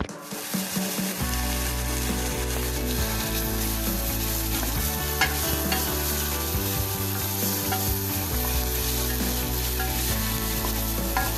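Diced onion sizzling as it fries in a saucepan, stirred with a spatula that now and then ticks against the pan.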